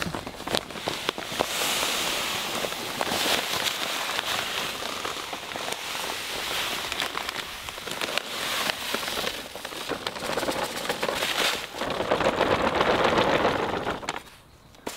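Granular fertilizer pellets pouring from a bag into a plastic spreader hopper, a steady hiss of falling granules that grows loudest near the end and then cuts off.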